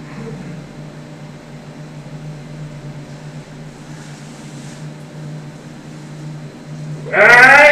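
A steady low hum of a running machine. Near the end a sudden, loud squeal cuts in and rises in pitch.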